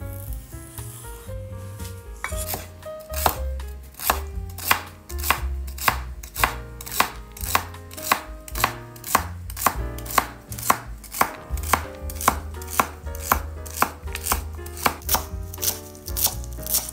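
Kitchen knife slicing celery stalks on a wooden cutting board: steady, even cuts about two a second, beginning about two seconds in, each a sharp knock of the blade on the board, over background music.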